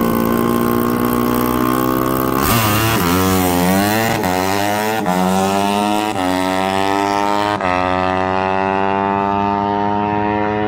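Honda CRF150 dirt bike's single-cylinder four-stroke engine held at steady revs on the drag-strip start line, then launching about two and a half seconds in and accelerating away. The pitch climbs and drops back at each of four upshifts.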